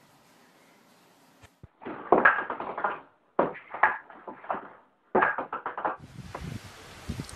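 Table-tennis ball clicking in quick bounces on the table and paddle, in three bursts of rapid clicks. Near the end the clicks give way to a steady outdoor hiss.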